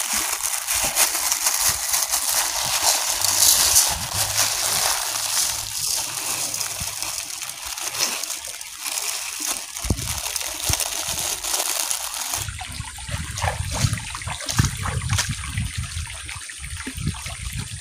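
Dry rice poured from a plastic bag into a metal wok: a steady hissing patter of grains on metal. About twelve seconds in it gives way to water sloshing and splashing as the rice is washed in the wok.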